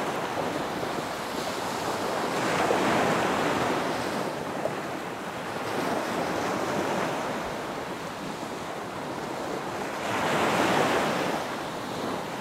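Sea surf breaking on a sandy beach: a steady rushing wash that swells louder as waves come in, most strongly about two to three seconds in and again near the end.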